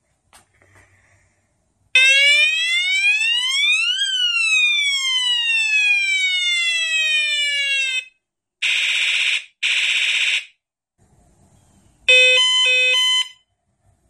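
Battery-powered bicycle police siren horn, its buttons pressed in turn. A small click, then an electronic siren wail that rises for about two seconds and falls for about four, then two short buzzy trumpet-horn honks, and near the end a brief electronic ring of quick stepped tones.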